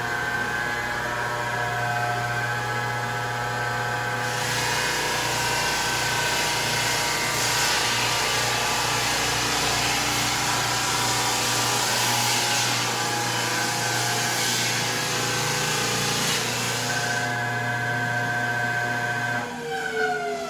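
Rented floor sander running on original hardwood flooring, its steady motor hum joined by a coarse, gritty hiss for about thirteen seconds while the paper cuts into the old dirty finish and wood. Near the end the motor is switched off and winds down, its pitch falling.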